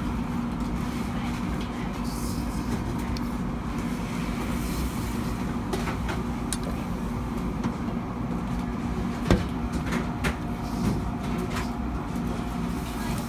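Steady low mechanical hum with scattered light clicks and knocks from a knife and fish being handled on a cutting board; the loudest knock comes about nine seconds in.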